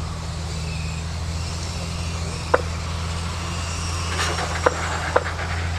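Electric M-chassis mini RC touring cars racing, with a faint high motor whine over a steady low hum. Three sharp clicks come about halfway through and twice near the end.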